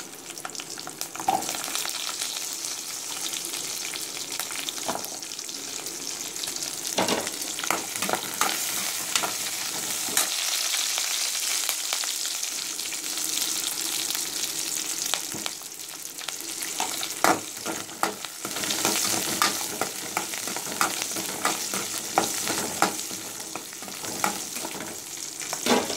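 Shallots sizzling steadily in hot oil in a metal kadai, stirred with a perforated steel ladle that scrapes and taps against the pan, the scrapes coming more often in the second half.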